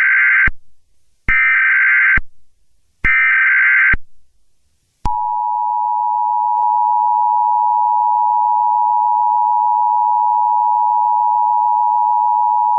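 Emergency Alert System SAME header: three short blasts of data tones, each under a second and about a second and a half apart, the first already under way. About five seconds in, the steady two-tone EAS attention signal (853 and 960 Hz) starts and holds.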